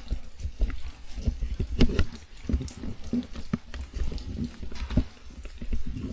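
Close handling noise of a camera and its mount being fitted: irregular clicks, knocks and rubbing right at the microphone, with low thumps, over faint rain patter.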